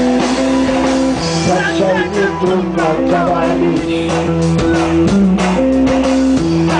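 Punk rock band playing live and loud: electric guitar chords changing every second or so over bass and drums.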